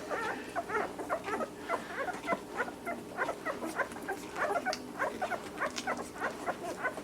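A litter of six-day-old puppies making a cacophony of many short, overlapping squeaks and whimpers while nursing.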